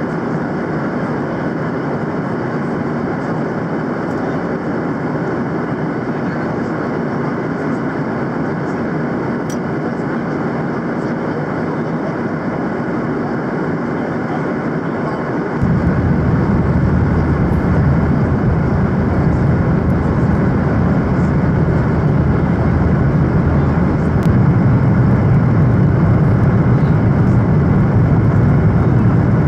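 Jet cabin noise of a Boeing 737-800 with CFM56-7B engines, a steady rushing rumble. About halfway through it steps up suddenly, louder with a much stronger low rumble, which holds to the end.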